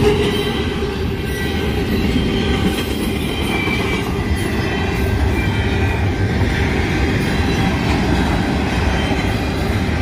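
Union Pacific double-stack intermodal freight train rolling past: a steady, loud rumble of the container well cars' wheels on the rails.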